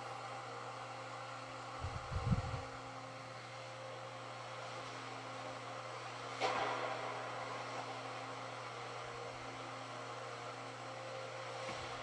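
Steady mechanical hum and hiss of a large shaking-table test hall during a test of a steel-frame building model. A few low thumps come about two seconds in, and a single sharp bang about six and a half seconds in.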